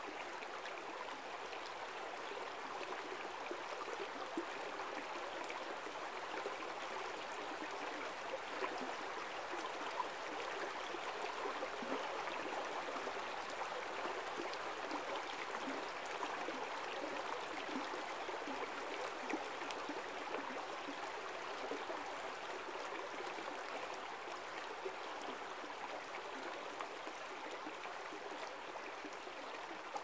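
Waiau River, a forest stream, flowing with a steady babble of running water. It swells a little in the middle and eases slightly towards the end.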